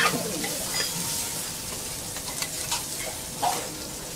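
Kobe beef frying on a teppanyaki steel griddle, a steady sizzle. The chef's metal spatula scrapes the hot plate loudly right at the start, with scattered light clicks of metal on steel after.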